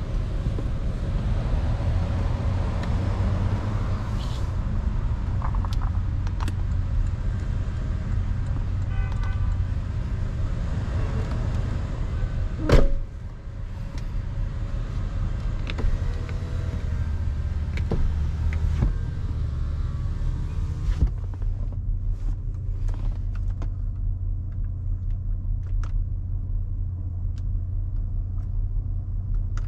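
2009 Porsche Panamera Turbo's 4.8-litre V8 running with a steady low rumble. A single sharp knock about halfway through is the loudest sound, and a few scattered clicks follow near the end.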